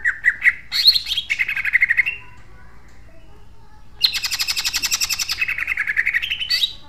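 Caged male cucak ijo (green leafbird) singing its fast rapid-fire song, the 'tembakan', in tightly spaced notes that slide down in pitch. There are two bursts, the second starting about four seconds in after a short pause.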